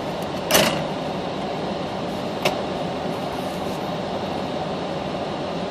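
Steady running hum inside a car's cabin, with a short burst of noise about half a second in and a single sharp click a couple of seconds later.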